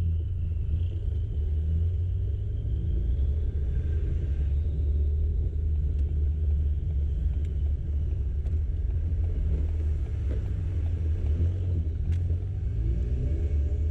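Ford Fiesta ST being driven: a steady low engine and road rumble, with no distinct misfire bangs.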